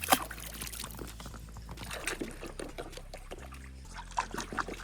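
Water splashing and trickling in irregular small bursts, with a sharp knock just at the start.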